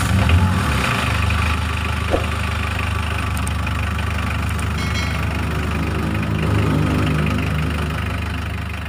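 Small pickup's under-seat engine, just started, running a little faster for about the first second and then settling into a steady idle.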